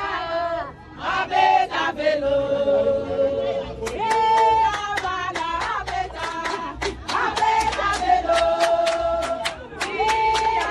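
A group of people singing together in celebration, holding long notes, with rhythmic hand-clapping joining in about four seconds in.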